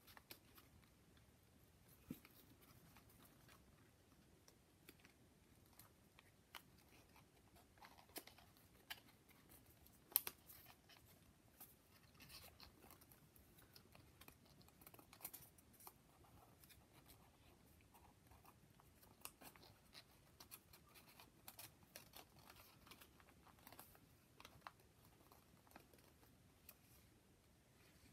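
Faint crinkling and rustling of folded paper origami units being handled and tucked together, with scattered small clicks and crackles and one sharper tick about ten seconds in.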